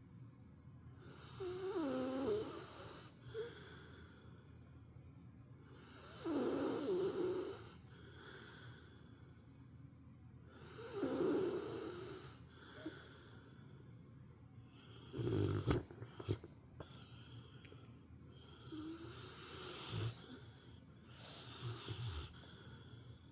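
A sleeping Rottweiler snoring deeply, like an old man: one long snore about every four to five seconds, with quieter breathing in between.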